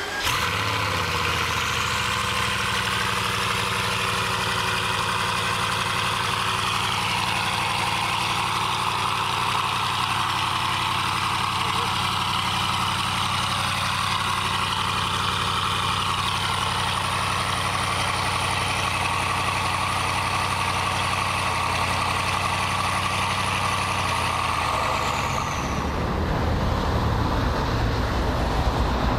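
Bugatti Veyron's W16 engine idling steadily just after starting. About three seconds before the end it cuts to a louder, rougher low rumble of other cars' engines.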